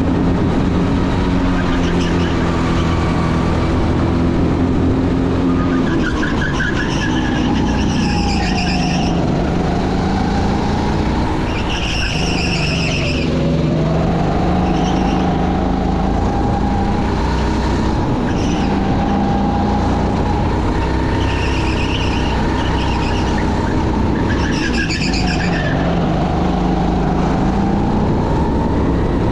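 An engine running continuously, its pitch dipping and rising again several times, with about half a dozen short high-pitched squeals over it.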